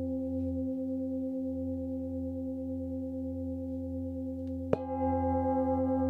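Tibetan singing bowl tuned to low F ringing with a steady, deep hum and higher overtones. Near the end it is struck once and rings out louder, with brighter overtones added.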